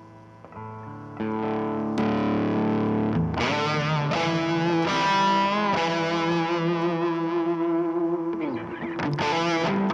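Squier Jazzmaster electric guitar played through overdrive and fuzz pedals. A chord fades out, new chords are struck about a second in and again near two and three seconds, then held notes waver with vibrato and bends.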